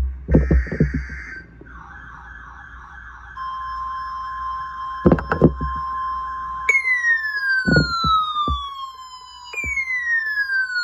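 Emergency alert broadcast tones. A short buzzy data burst is followed by a warbling tone, and then a steady single-pitch tone near 1 kHz begins about three seconds in. Two falling, siren-like sweeps play over the steady tone in the later part, with a few brief low thumps in between.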